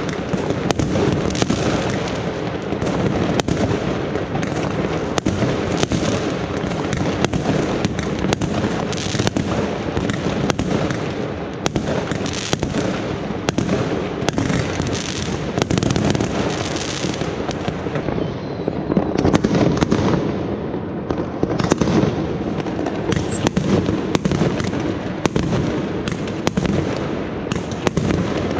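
Many fireworks going off at once: sharp bangs of bursting aerial shells every half second to a second, over a constant wash of crackling and more distant bursts.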